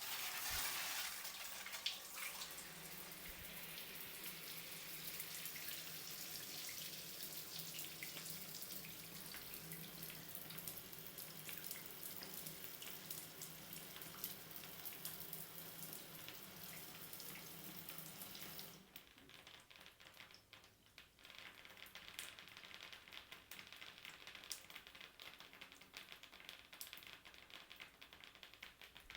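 Shower running with a steady hiss of spray. It is turned off about two-thirds of the way through, and afterwards water drips fall in scattered ticks.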